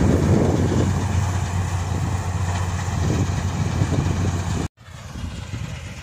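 Combine harvester running as it harvests, a steady engine hum with machinery noise close by. About three-quarters of the way through the sound cuts off abruptly and comes back much quieter and more distant.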